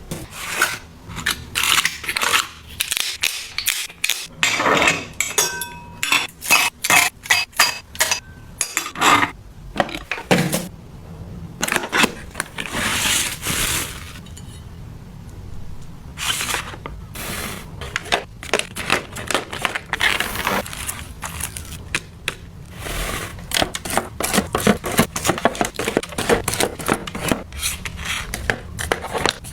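Household cleaning sounds: many quick clinks and knocks of hard objects being handled and set down, a few of them ringing briefly, with stretches of scraping or scrubbing between them.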